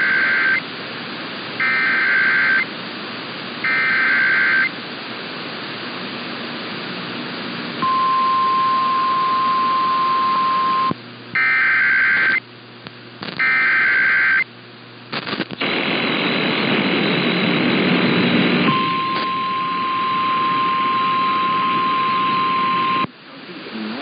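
Emergency Alert System signals heard through AM radio static on a web SDR receiver. Three one-second bursts of the warbling SAME data header come about a second apart, then the steady 1050 Hz attention tone plays for about three seconds. Two more data bursts follow, and after the static grows louder the 1050 Hz tone returns for about four seconds.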